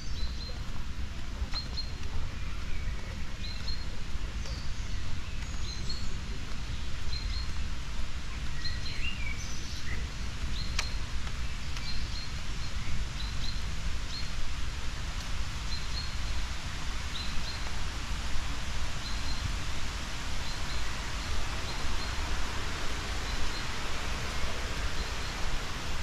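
Small birds chirping in park trees. One bird repeats a short high chirp about once a second, and other calls come now and then, over a steady low rumble and hiss.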